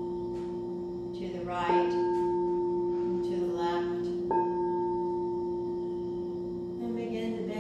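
Frosted quartz crystal singing bowl ringing with a steady low tone and a fainter higher overtone. It is struck again with its mallet twice, just under two seconds in and again past the middle, each strike renewing the ring.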